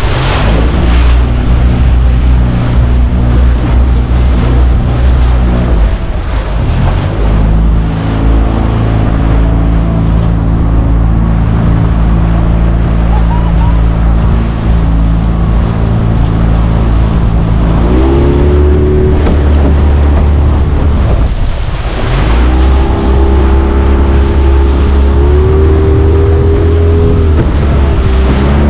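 Motorboat engine running under way, its note climbing about two-thirds of the way through and shifting again near the end as the throttle changes, with wind noise on the microphone.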